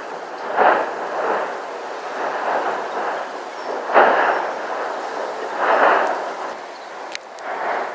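Erupting Cumbre Vieja volcano, a rough roar that comes in repeated surges, strongest about half a second in, at four seconds and near six seconds. A single sharp click comes shortly after seven seconds.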